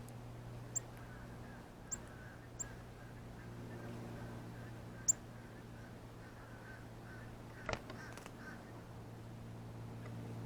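Male northern cardinal giving its sharp, high chip notes while feeding: four separate chips, each a quick downward flick, the loudest about halfway through. A single knock comes near the three-quarter mark, over a steady low hum.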